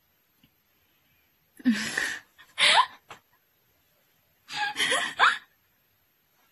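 A young woman laughing in two short bursts, about two seconds in and again about five seconds in, with rising squeaky notes in the laughter.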